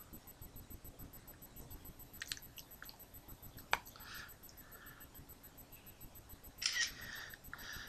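Quiet, scattered handling noises with a few soft clicks, one sharp click a little before the middle, and a short, louder noisy burst about two-thirds of the way through.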